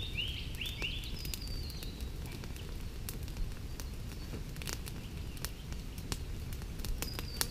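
Newly lit fire of paperbark and palm-fibre tinder with small dry twigs on top, crackling with scattered sharp pops.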